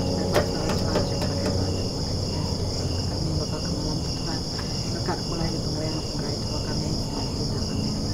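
Night insects, crickets by the sound, chirping without a break: a steady high trill with a lower chirp pulsing about twice a second. A low steady hum runs underneath, and a couple of light clicks come right at the start.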